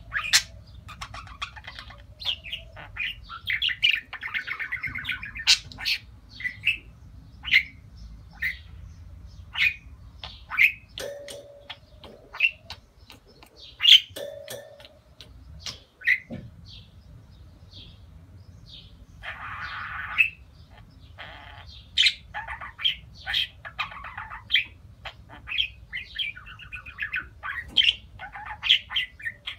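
Budgerigar chirps and warbling: a stream of short, sharp chirps broken by stretches of fast chatter.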